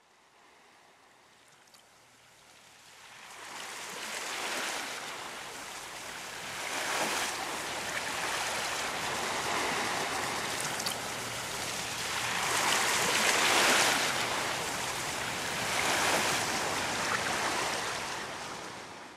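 A rushing noise like surf, swelling and easing about every three seconds. It fades in from near silence over the first few seconds and cuts off abruptly at the end.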